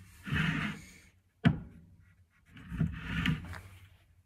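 Hand rubbing and handling a wooden hockey stick: two scuffing rubs with a sharp click between them.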